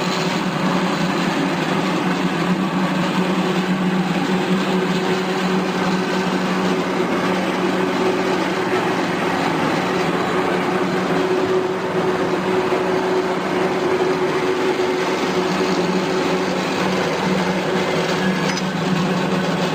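18-inch Marvel Series 8 Mark 1 vertical bandsaw running under power: a steady, unchanging motor hum under the whir of the moving blade and drive.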